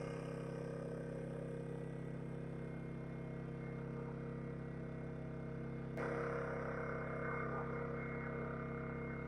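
Steady low mechanical hum made of several held tones. About six seconds in there is a short click, and the hum shifts and grows a little louder.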